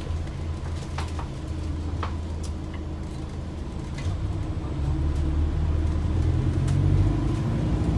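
Cabin noise inside an ADL Enviro 400H MMC diesel-electric hybrid double-decker bus on the move: a steady low rumble with a few light rattles and clicks, growing louder about halfway through.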